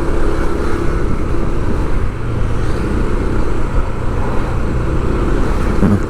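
A motor vehicle's engine running steadily with road noise while driving along city streets.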